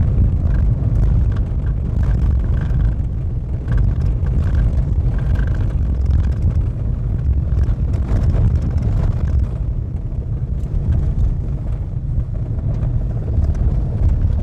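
Car driving on a gravel road, heard from inside the cabin: a steady, loud low rumble of tyres on gravel and running gear.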